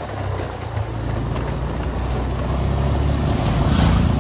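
Vehicle engine and road noise while driving along a road: a steady low hum, with a short rush of noise near the end.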